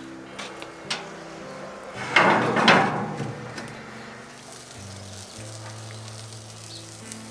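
Cast-iron pan dragged across the metal bars of a braai grid: a harsh scraping rasp with two peaks, about a second long, starting about two seconds in, with a few light clicks before it. Soft background music with held notes plays underneath.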